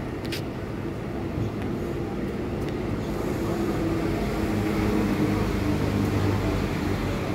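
Steady low engine hum over a rumble of outdoor background noise, getting a little louder in the second half.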